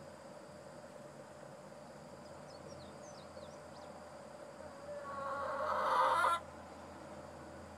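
Hen in a nest box, just after laying an egg, gives one long call that builds louder over about a second and a half and cuts off abruptly.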